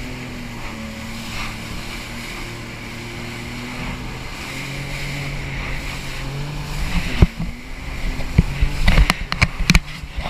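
Jet ski engine running at speed: a steady drone that steps up in pitch about halfway through, over rushing water and wind. From about seven seconds on, loud thumps and splashes cut in.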